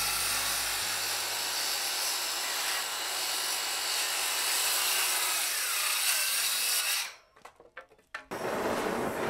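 Handheld circular saw cutting through a wooden board, a steady hissing rasp that stops suddenly about seven seconds in. A brief lull with a few small clicks follows, then a different noisy sound starts near the end.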